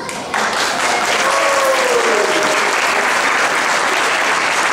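Audience clapping, breaking out just after the start and holding steady, with a few voices calling out over it in the first couple of seconds.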